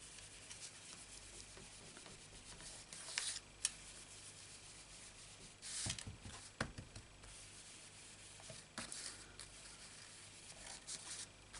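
Ink blending brush rubbed over cardstock: a faint scratchy brushing that comes in about four short spells, with a couple of light clicks.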